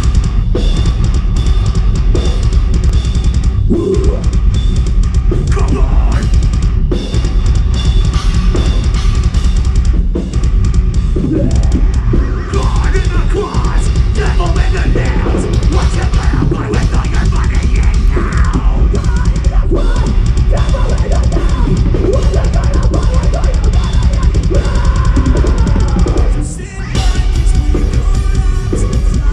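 Heavy metal band playing live at full volume, with a pounding drum kit (bass drum and cymbals) under the full band. The music dips briefly near the end, then comes straight back in.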